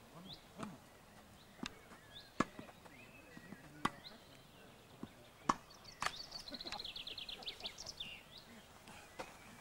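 Tennis ball being hit by rackets and bouncing during a doubles rally: a series of sharp pocks a second or so apart. A bird trills a run of quick high notes in the second half.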